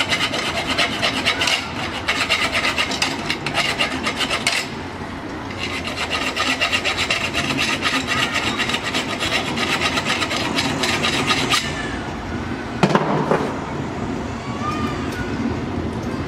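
Hand file scraping the end of a copper refrigerant pipe in quick repeated strokes, deburring it before flaring. The filing pauses briefly about four and a half seconds in and stops a little before twelve seconds, followed by a brief knock.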